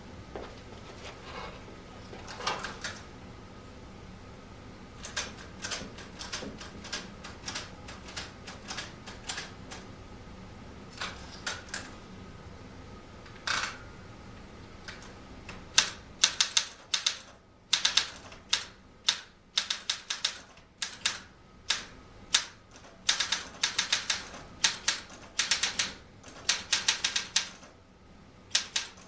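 Olympia SM-9 manual typewriter being typed on. Scattered single keystrokes come first, then from about halfway through a fast run of sharp key strikes.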